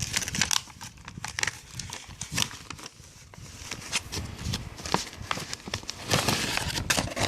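Handling of a pistol and its packaging: irregular light clicks and knocks with plastic crinkling.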